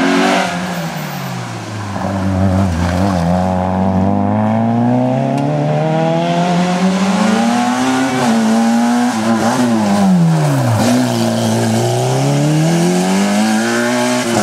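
Two small hatchback rally cars at full throttle on a tarmac stage. The engine note falls as the first car goes by, then climbs as the next car accelerates in, drops at gear changes and dips sharply about eleven seconds in, and climbs again as it pulls away.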